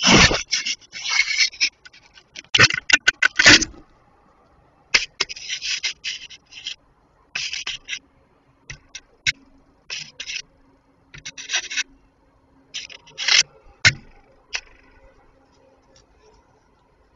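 Scraping and rubbing right against a security camera's microphone: loud, close noisy bursts packed together in the first four seconds, then shorter irregular scrapes that thin out and stop about three quarters of the way through.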